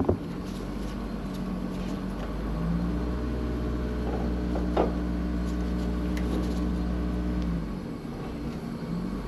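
A steady machine hum with a few faint clicks; the hum shifts in pitch about two and a half seconds in and drops out near the end.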